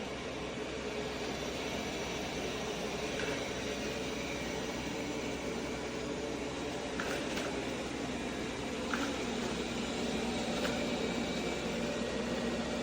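Roborock S8 Pro Ultra robot vacuum running: a steady hum of its suction fan and brushes with a faint whine, and a few light ticks.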